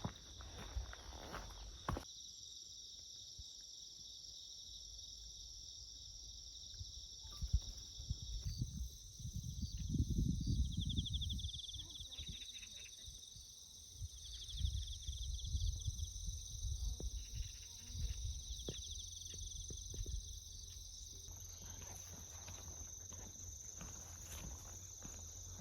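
A steady high-pitched chorus of insects, with short trills now and then. Footsteps and low rumbling come and go underneath, loudest around the middle.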